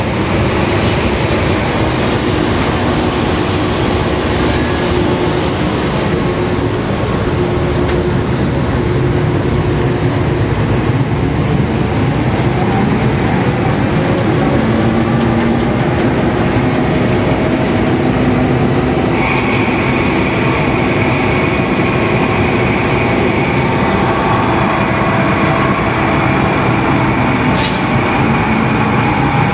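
Loud, steady din of a 2000 HP SCR electric drilling rig's drawworks and floor machinery running while pipe is run down into the hole. A steady high whine joins about two-thirds of the way through, and a short hiss comes near the end.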